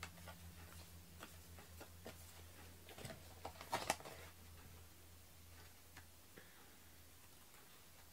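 Small scissors trimming the edge of a cardstock panel: faint scattered clicks and snips, with a few louder ones about three to four seconds in, over a low steady hum.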